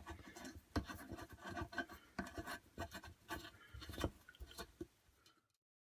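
Metal scraping and rubbing with irregular clicks: a hand tap being turned to cut threads in a screw hole in the wood stove's door. Cuts off abruptly about five seconds in.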